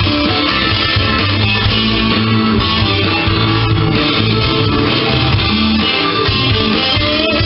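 Gibson electric guitar improvising over a rock backing track, with sustained bass notes underneath the guitar.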